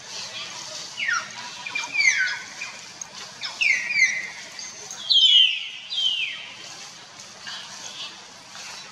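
Animal calls: a series of short, high calls, each sliding down in pitch, about one a second, thinning out after about six seconds, over a steady high hiss of forest background.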